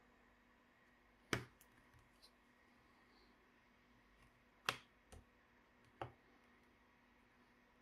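Sharp clicks from a laptop being taken apart by hand: two loud clicks about three seconds apart, then two softer ones, over a near-silent background.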